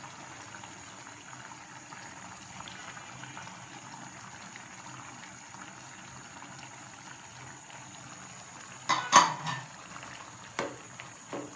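Curry liquid bubbling steadily as it simmers in the pan. About nine seconds in, a spatula knocks against the pan a few times as the tomatoes are stirred in, the first knock the loudest.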